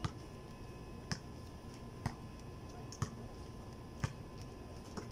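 A basketball bouncing on an outdoor court, a slow, even dribble of about one bounce a second.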